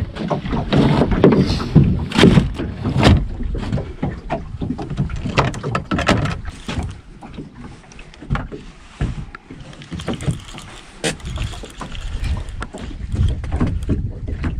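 Irregular knocks and clicks of fish and fishing gear being handled on a small boat's deck, loudest and most frequent in the first three seconds and sparser after, over a low rumble.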